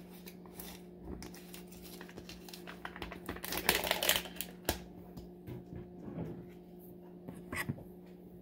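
Plastic jar of marshmallow creme being opened and scooped out: clicks and crinkling from the lid and seal, then a louder stretch of rustling and scraping about three and a half seconds in, with a few knocks later. A faint steady hum runs underneath.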